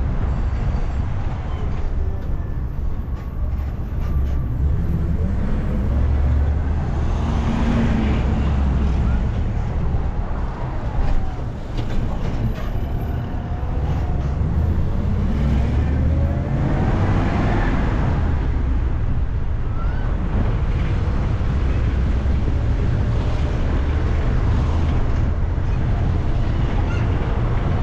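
Public-transport 'micro' bus in motion: a steady low engine rumble with road and traffic noise, swelling twice as louder passes of noise rise and fall.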